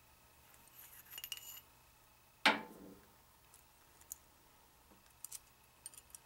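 Light metallic clinks and one sharper knock about two and a half seconds in as the steel arbor shaft of a Ridgid R4511 table saw is worked free of its trunnion, then a few faint ticks.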